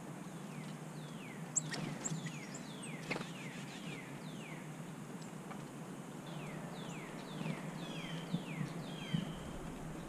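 Northern cardinal singing phrases of quick down-slurred whistled notes, with a few sharp clicks among them over a low steady background hum.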